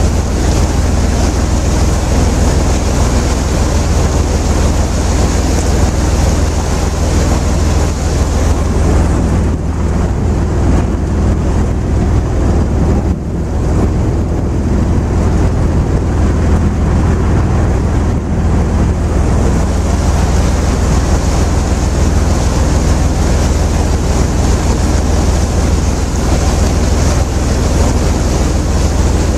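River cruise boat under way: its engine running steadily under wind buffeting the microphone and water rushing past. The hiss eases for several seconds around the middle.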